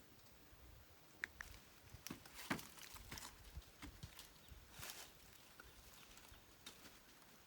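Faint, irregular light taps and knocks, a dozen or so scattered over several seconds, the loudest about two and a half seconds in.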